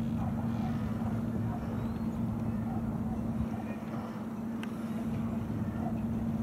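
Small fishing boat's engine under way, a steady low drone that holds an even pitch.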